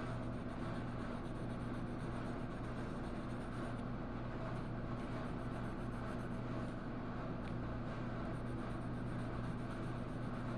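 Steady low hum inside a truck's cab with the engine running.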